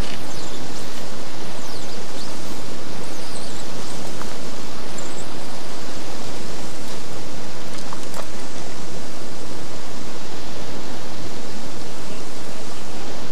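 Steady, loud rushing noise with no distinct events: wind on the camera's microphone. A few faint, short, high chirps sound over it.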